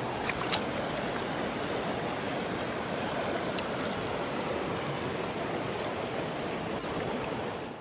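Shallow mountain stream rushing steadily over stones, with a couple of small ticks near the start.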